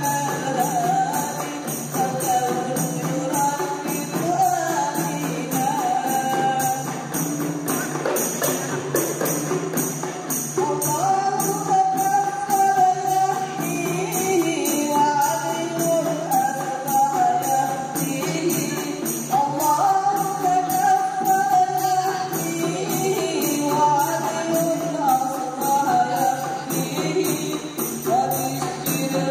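Women singing an Islamic qosidah song to a steady, driving beat of hand-struck rebana frame drums.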